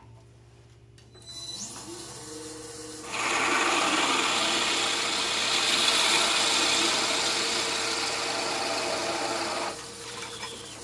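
Oneway wood lathe starting up and spinning, then a drill bit in a drill chuck boring into the end of the turning wood blank: a loud, even cutting hiss for about six seconds. It drops back to the lathe running alone near the end.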